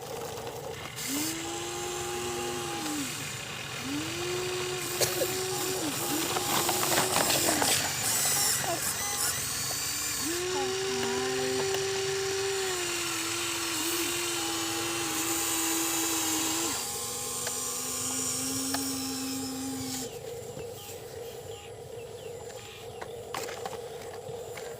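Whine of the Huina 1593 RC excavator's small electric motors, running in a series of short bursts that each rise in pitch as they start and drop as they stop, with a spell of rattling clicks partway through.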